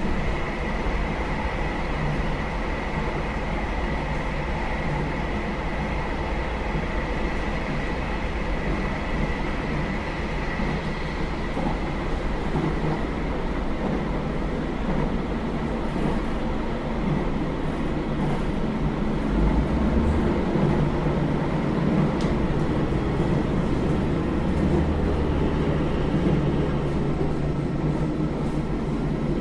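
Running sound inside a JR Hokkaido KiHa 201 series commuter diesel railcar: a steady rumble of the diesel engine and wheels on the rail. A faint steady whine fades out over the first ten seconds, and the sound grows louder and deeper from about twenty seconds in.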